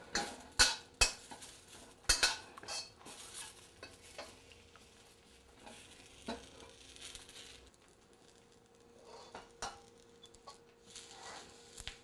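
Metal wok spatula scraping and clanking against a flat-bottom wok as chives are stir-fried to season it, with a faint sizzle underneath. The strokes come thick in the first few seconds, thin out in the middle, and pick up again briefly near the end.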